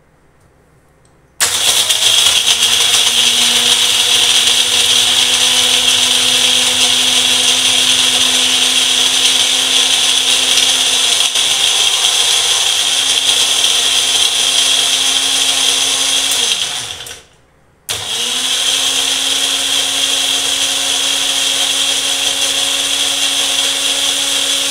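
Personal bullet-style blender motor running with coffee, sugar, water and ice cubes in the cup, switched on by pressing the cup down. It starts abruptly about a second in and runs steadily for about fifteen seconds, winds down with a falling pitch, and after a short pause starts again and runs on.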